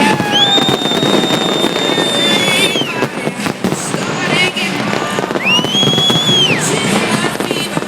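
Fireworks display: a dense run of bangs and crackles, with two long high whistles, the first starting about half a second in and lasting over two seconds, the second shorter and rising then falling about five and a half seconds in.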